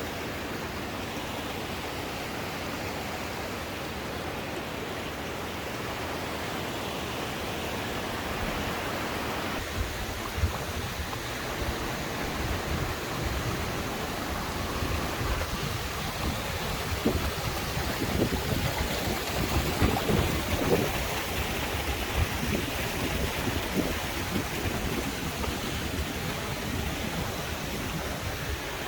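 Steady rush of flowing river water and cascades. From about ten seconds in, irregular low gusty rumbling is added on top.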